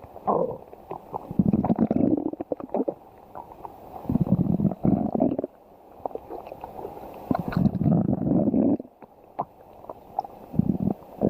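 Stomach growling: several bouts of low gurgling rumbles with crackly pops, each a second or two long, separated by quieter gaps.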